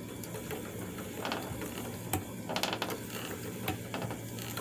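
Treadle spinning wheel running: the wheel, flyer and bobbin turn with a low steady hum and irregular light clicks and knocks from the wooden mechanism.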